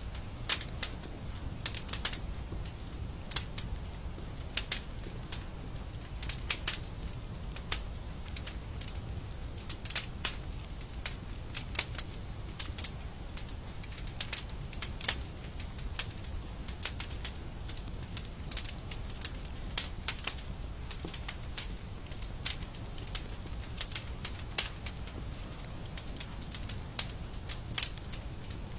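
Fire in a fireplace crackling: irregular sharp pops and snaps, several a second at uneven spacing, over a low steady rumble.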